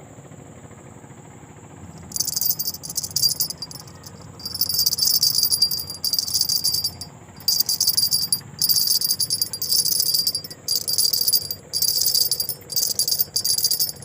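Cicadas buzzing in loud, high-pitched bursts of a second or two with short breaks, starting about two seconds in, over a faint steady high insect whine.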